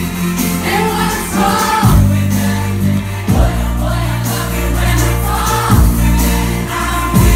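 Live pop band playing loud, with a sung vocal melody over a sustained bass line that changes note every second or two and a sharp drum hit at each change.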